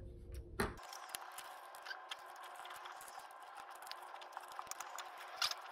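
Faint clicks and small taps of fingers handling 35 mm film and the metal body of a Wollensak stereo camera while seating the film in the open camera back, over a steady faint hiss; two clicks stand out, about half a second in and near the end.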